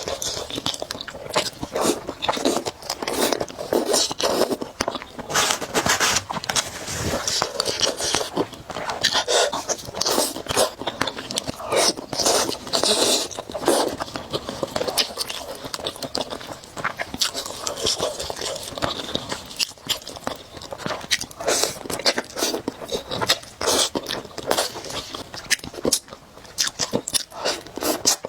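Close-up eating sounds of a person eating spicy noodles: wet slurping, chewing and mouth smacks, irregular and continuous.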